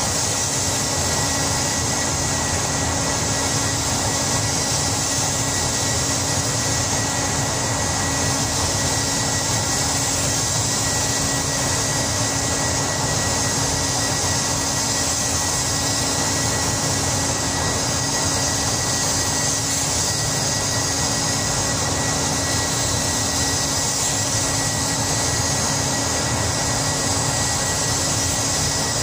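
Steady rushing hiss of a paint spray booth's air handling and a compressed-air spray gun laying paint on a car body, with a steady hum and a faint high whistle underneath.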